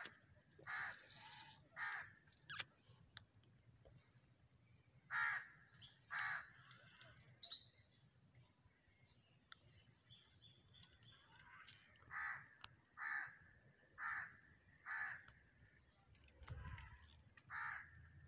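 A crow cawing repeatedly, a few calls early and then a run of calls about one a second in the second half.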